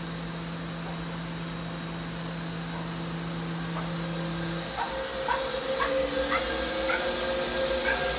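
Fanuc Robodrill Mate drill-tap vertical machining center running: a steady electric hum that jumps to a higher pitch about halfway through, with a hiss that grows louder toward the end.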